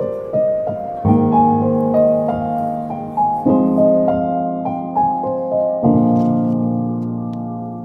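Background piano music: a melody of single notes over fuller chords struck about every two and a half seconds.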